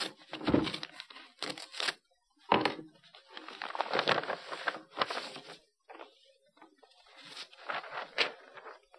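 A paper envelope being torn open and handled, with tearing and rustling in irregular bursts and a low thump about half a second in.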